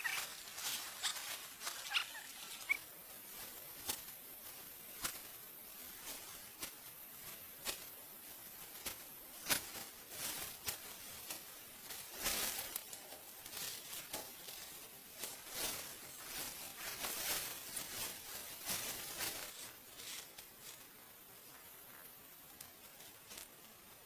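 Irregular rustling swishes mixed with many light clicks and snaps, thinning out and quieter over the last few seconds.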